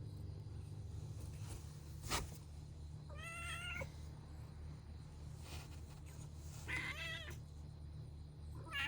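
A cat meowing: two short calls a few seconds apart, with a third starting near the end. There is a single sharp click about two seconds in and a steady low hum underneath.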